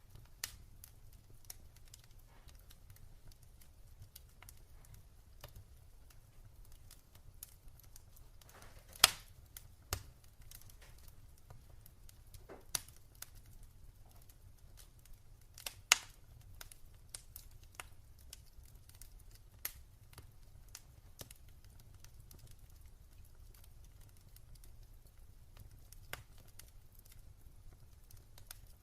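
Wood fire in a fireplace crackling: scattered sharp pops and snaps over a faint low rumble, with two louder pops about a third and just over halfway through.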